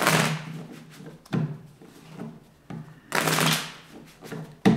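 A deck of tarot cards being riffle-shuffled and bridged by hand: rapid crackling riffles, loudest at the start and again about three seconds in, with a lighter riffle between and a sharp knock near the end.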